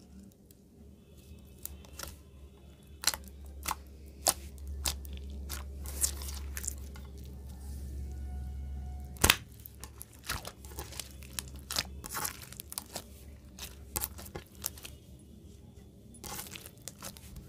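Clear slime packed with blue beads being stretched, folded and pressed by hand: irregular sticky crackles and pops, with one loud pop about nine seconds in.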